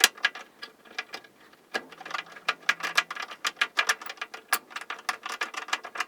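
Quick, uneven clicking of a hand tool turning a screw out of the wooden cupboard: a few clicks at first, then a dense run of them from a couple of seconds in.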